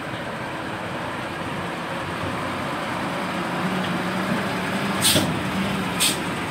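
Diesel engine of a fully loaded Hino 500 dump truck running steadily as it crawls along, its note getting stronger from about halfway through. Two short hisses come near the end.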